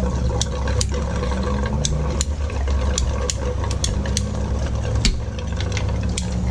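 Reciprocating saw with a fine blade running and cutting through a water-heater pipe tee at the threads: a steady motor hum with scattered sharp ticks.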